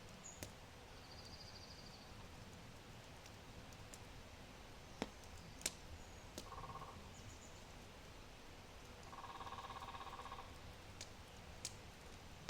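Low oak wood fire crackling, with a few sharp pops. Birds call in the background: a short high trill about a second in, and a longer pitched call around nine seconds in.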